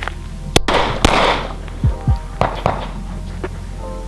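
Glock 19 9mm pistol shots, the two sharpest about half a second and a second in, with the second ringing out afterwards. Background music with a bass beat runs underneath.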